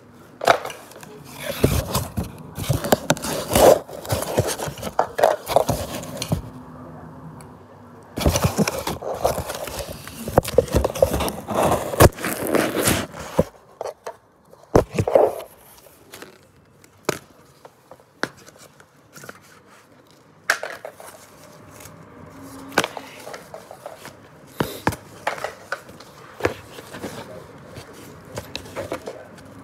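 Cardboard and paper packaging being scraped at and torn open close to the microphone. There are two long spells of dense scraping and ripping, then sharp knocks and scattered rustles.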